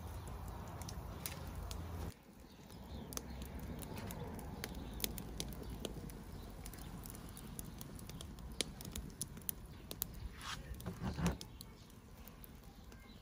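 Wood fire crackling under a barbecue grill: irregular sharp snaps and pops from burning sticks.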